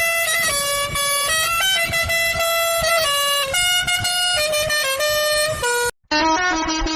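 Musical bus horn playing a tune in quick stepped notes. It cuts off about six seconds in, and another horn tune starts at a lower pitch.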